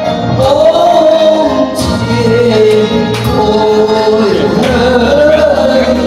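Music: a man's live lead melody through a handheld microphone over a recorded backing track, with long held notes and gliding slides between them.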